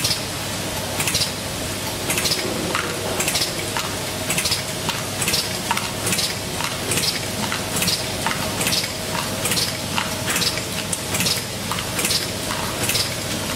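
Automatic block capacitor forming machine cycling, its pneumatic cylinders letting out short hisses of air about twice a second over a faint steady hum.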